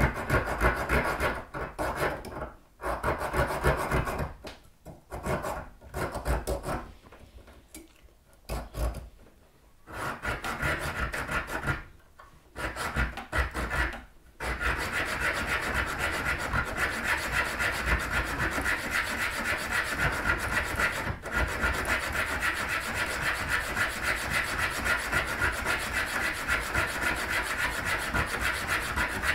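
Hacksaw cutting a metal spindle: rasping back-and-forth strokes of the blade on steel. Over the first half the sawing stops and starts with short pauses, then it runs on steadily from about halfway, broken once briefly.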